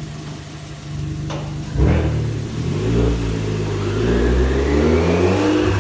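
Alfa Romeo MiTo Quadrifoglio Verde's 1.4-litre turbocharged four-cylinder engine, with its rear silencer deleted, running on a rolling-road dyno. It runs steadily at first, then goes to full load about two seconds in and pulls steadily up through the revs at the start of a power run on the standard calibration, with a whine rising alongside.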